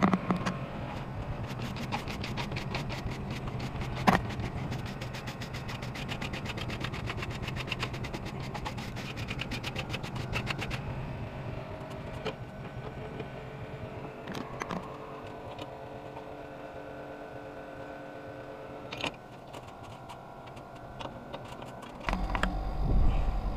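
R22 split air conditioner running with a steady mechanical hum while refrigerant is being charged into the empty system. A fast, even ticking runs for the first ten seconds or so, with a few knocks and clicks of handling, the sharpest about four seconds in. The hum gets louder near the end.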